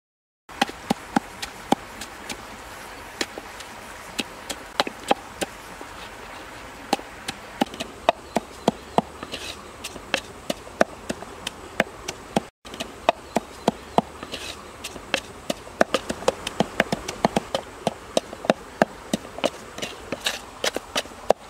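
Pestle pounding in a mortar: quick, irregular knocks, several a second, over a steady background hiss.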